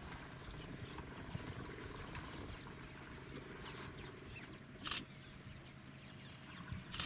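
Quiet outdoor background with a steady low rumble, broken by a short sharp click about five seconds in and another near the end.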